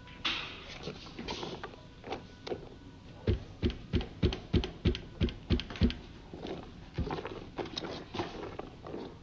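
Silicone spatula folding whipped cream in a metal bowl: soft wet scraping, with a quick run of about nine knocks in the middle, about three a second.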